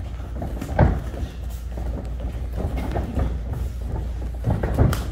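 Sparring strikes with gloves and shins landing: one sharp thud about a second in and a few more knocks near the end, over a steady low rumble.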